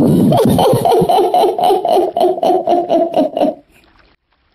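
A cartoon character's voiced laughter after a joke's punchline: a rapid run of 'ha-ha' pulses, about five a second, that stops about three and a half seconds in.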